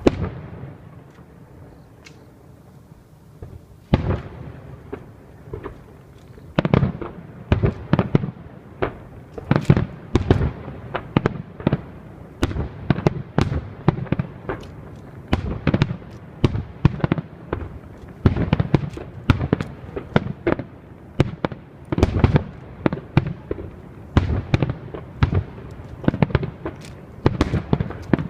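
Fireworks display: aerial shells bursting with sharp bangs. One loud burst at the start and a few scattered ones, then from about six seconds in a rapid barrage of many bursts, several a second, overlapping.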